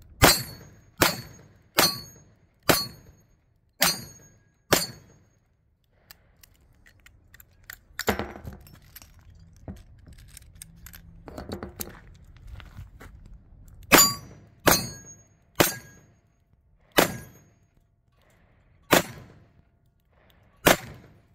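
Six revolver shots about a second apart, each followed by the ring of a steel target. Then several seconds of quieter clicks and metal clinks as spent brass is dumped and the cylinder reloaded, and six more shots with steel ringing, spaced more unevenly.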